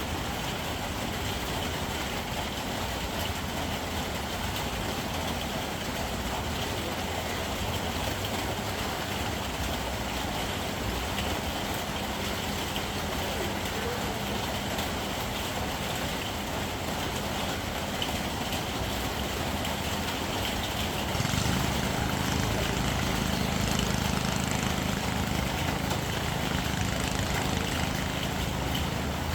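An engine running steadily under a constant hiss. About 21 s in its low hum grows louder.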